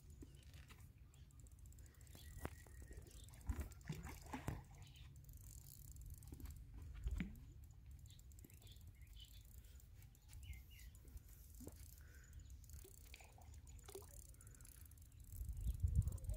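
Quiet outdoor riverbank ambience: a steady low rumble, faint bird chirps and a few soft clicks and knocks. The low rumble grows louder near the end.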